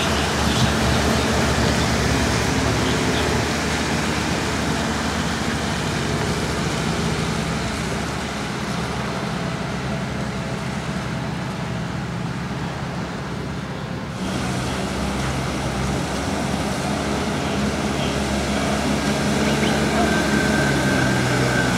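Parking-lot tram, a tractor towing a string of open passenger cars, driving past with its engine running and road noise. The sound shifts abruptly about fourteen seconds in.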